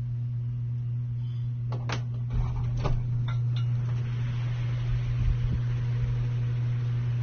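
Ceiling fan running: a steady low motor hum with a rush of air, and a few light clicks in the first half.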